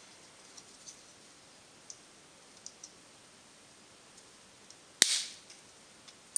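Hand work with a small tool on a cordless drill battery's plastic terminal connector: a few faint ticks, then one sharp, loud snap about five seconds in that dies away over about half a second, and another click near the end.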